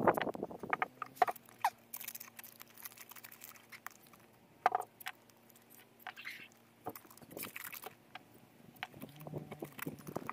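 Masking tape being pulled off the roll in short rips, with paper crinkling and rustling as it is pressed and taped around the extinguisher body. Scattered small clicks and rustles, no steady sound.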